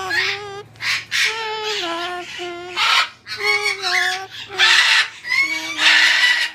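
A pet parrot calling: a string of loud pitched, wavering calls broken by harsh screeches, the screeches loudest in the second half.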